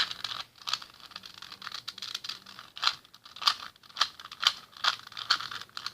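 Plastic Rubik's Cube being turned by hand, its layers clicking and clacking in quick, irregular turns.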